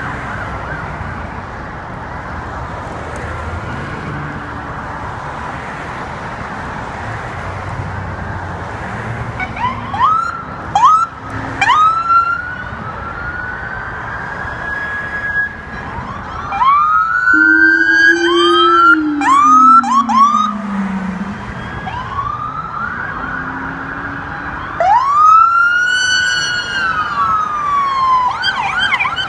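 Police car sirens giving short rising whoops and chirps as patrol cars pass, over the steady rumble of passing vehicles. The siren blasts start about ten seconds in and come in several bursts, with a low tone sliding down in pitch midway and a fast yelp near the end.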